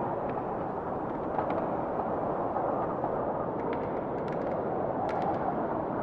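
Steady rushing of wind and rough lake waves, with a few short sharp clicks in the second half.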